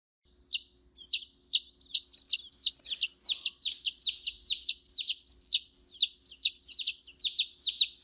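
A chick peeping: a long run of short, high-pitched, downward-sliding peeps, about two to three a second, starting about half a second in.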